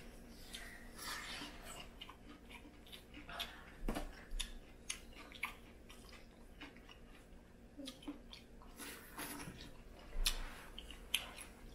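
Boiled crawfish being eaten by hand: scattered soft cracks and clicks of shells being broken and peeled, with chewing, and a sharper crack about four seconds in.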